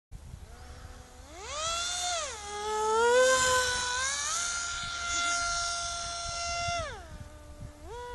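RC Zagi flying wing's motor and propeller whining. The pitch rises and falls with the throttle, holds steady for a few seconds, then drops sharply about seven seconds in and rises briefly once more. It is loudest a few seconds in, as the plane passes low.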